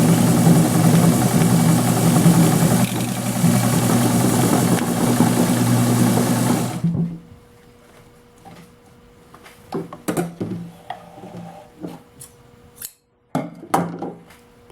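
Brother-built American Home Deluxe straight-stitch sewing machine running steadily, motor humming, as it sews through three layers of leather on a very fine stitch. It stops about halfway through, followed by a few light clicks and handling sounds.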